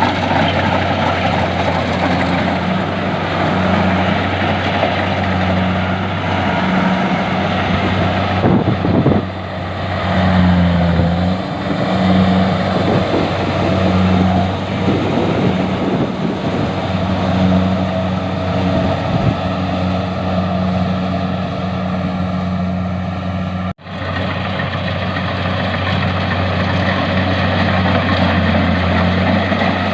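Rice harvesting machine's engine running steadily under load, a constant low hum with dense mechanical noise from the grain being worked. The sound breaks off for an instant about three-quarters of the way through.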